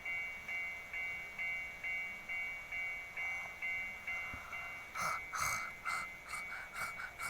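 A high bell-like chime note repeating evenly about twice a second. From about five seconds in, crackly rustling of paper or plastic being handled.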